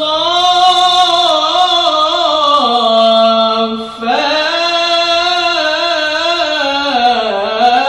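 A man reciting the Quran (tilawat) in a melodic, chanted style. He holds long notes that waver and slide in pitch, pauses for breath about four seconds in, and starts a new phrase.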